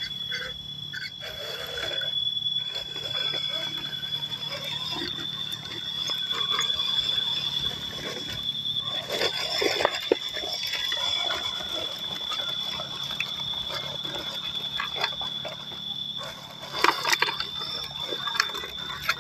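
1/12-scale MN99s RC crawler working over dirt and roots: its small electric motor and gears run under a steady high whine, with scattered crunches and clicks of the tyres and chassis on soil, loudest about nine seconds in and again about seventeen seconds in.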